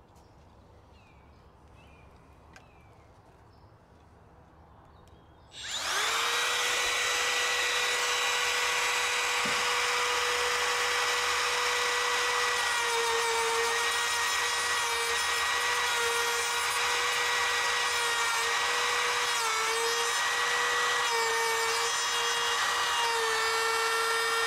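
A quiet stretch, then about five and a half seconds in a hand-held router starts, spinning up quickly to a steady high whine. Its bearing-guided bit cuts the curved edge of a pine board, and the pitch dips briefly now and then as it bites into the wood.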